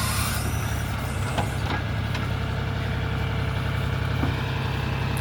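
John Deere 5310 tractor's three-cylinder diesel engine running steadily while it drives the backhoe loader's hydraulics to backfill a pit. A couple of sharp knocks come about a second and a half in.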